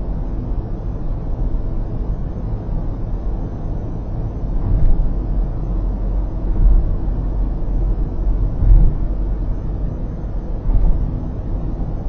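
Steady low road rumble and tyre noise inside a moving car, picked up by a dashcam microphone. From about the middle on, heavier low bumps come roughly every two seconds.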